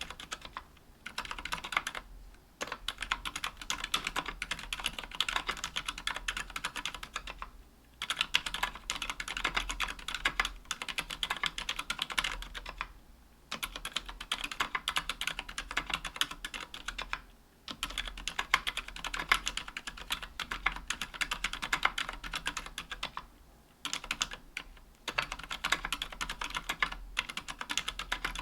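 Continuous fast typing on a KBDfans Tofu 60% aluminium mechanical keyboard with Healios silent linear switches and GMK keycaps: soft, muted keystrokes in quick runs, broken by short pauses every few seconds.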